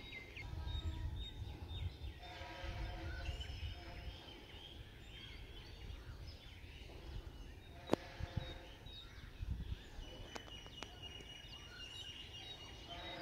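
Outdoor ambience: an uneven low rumble, several short bird calls, and a single sharp click about eight seconds in.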